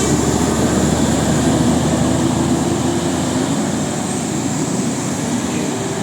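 A large intercity bus passing on the road, its engine and tyres rumbling steadily and slowly fading as it moves away.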